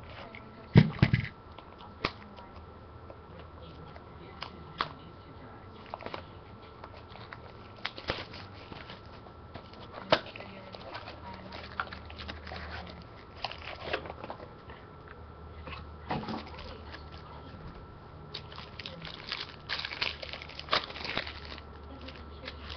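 Trading card packaging being handled and opened on a table: a thump about a second in, then scattered clicks and crinkling of cardboard and pack wrapper.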